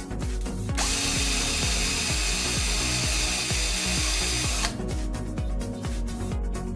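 Electric drill running with a bit for about four seconds, starting about a second in and stopping abruptly, over background music with a steady beat.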